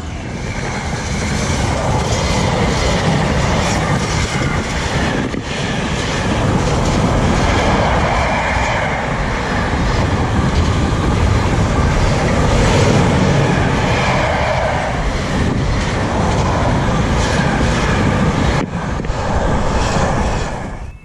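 Container freight train passing close by at speed, its wagon wheels clattering steadily over the rails. The noise drops away suddenly at the very end as the last wagon goes past.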